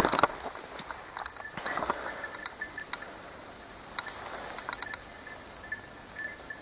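Handling noise from a handheld camera: scattered sharp clicks and a few short rustles, heaviest at the start and again around the middle.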